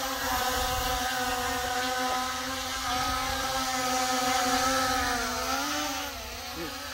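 GPS camera quadcopter drone with brushless motors flying close overhead: the steady buzzing whine of its spinning propellers. The pitch wavers slightly, then dips and the sound grows quieter near the end.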